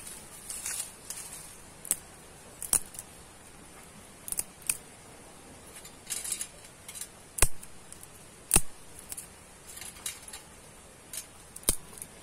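Dry twigs snapped by hand into short lengths of kindling: about seven sharp cracks spread out, with rustling of twigs and dry leaves between them.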